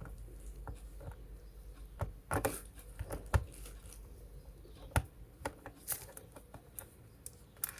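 Irregular light clicks and taps of small hard objects being handled, with two louder knocks about three and a half and five seconds in.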